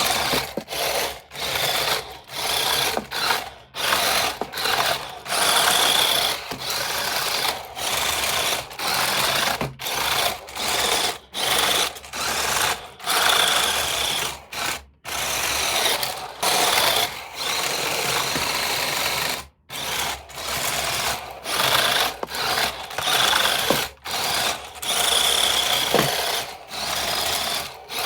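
Small electric motor and plastic gearbox of a remote-control toy whirring in repeated short bursts, stopping and starting every second or so as the controls are worked.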